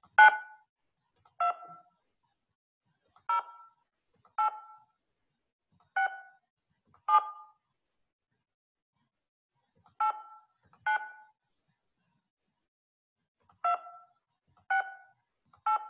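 Telephone keypad touch-tones (DTMF) from a Google Voice web dialer: eleven short two-tone beeps, one per key pressed, loosely in pairs about a second apart, the first the loudest. They are the digits of a Zoom meeting ID being keyed in at the dial-in prompt.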